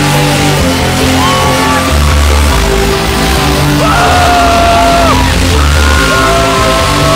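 Loud live trance music from a DJ set over a big sound system, with a heavy bass in repeating blocks and long held notes that bend in pitch, and the crowd yelling.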